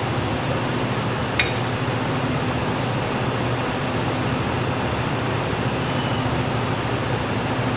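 Steady hum and hiss of commercial kitchen ventilation fans, with one light click about a second and a half in.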